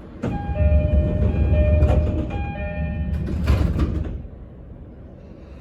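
E231 series commuter car's door-closing chime, a two-note tone alternating several times over a low hum, ending with the sliding doors shutting in a short rush of noise about three and a half seconds in.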